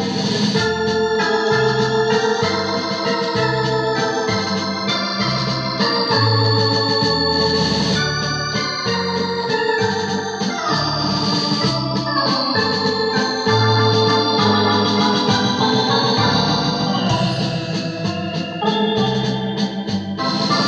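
Technics KN7000 keyboard playing a melody and sustained chords in an organ sound, over a bass line that steps between notes about once or twice a second.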